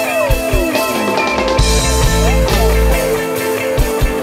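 Rock music with guitar and drums, with a long falling pitch sweep in the first second. The deep bass drops out for most of the stretch and comes back briefly in the middle.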